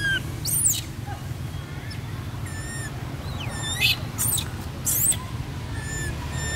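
Baby long-tailed macaque crying: several short, very high-pitched squeals mixed with shorter whistling cries that bend up and down in pitch.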